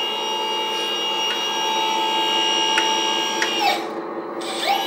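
Hydraulic pump motor of a 1/14 RC articulated dump truck whining steadily as the tipper bed is lowered. The pump winds down about three and a half seconds in and spins up again near the end, over a lower steady hum.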